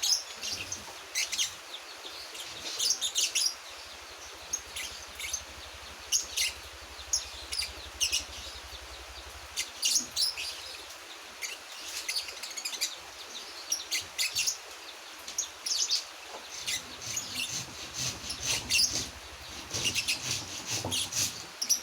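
A month-old caged songbird practising its song: quick, high chirps and twitters in irregular clusters, the halting subsong of a young bird learning to sing.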